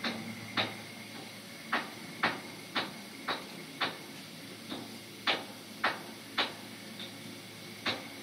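A series of sharp knocks, mostly about two a second with a couple of short pauses, over a steady faint hum.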